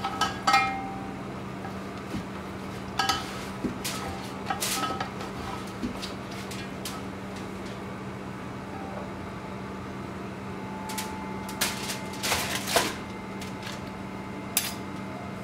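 A metal spoon clinking and scraping against an aluminium cooking pot in scattered short knocks as braised meat and thick gravy are spooned out, with a cluster of rustling strokes near the end. A steady low hum runs underneath.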